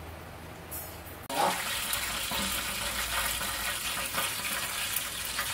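Kitchen tap turned on about a second in, water running steadily into the sink.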